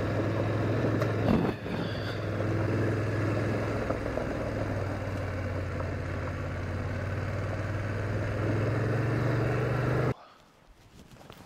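Adventure motorcycle engine running steadily in second gear at low speed on a dirt road. The sound cuts off suddenly about ten seconds in, leaving faint outdoor quiet.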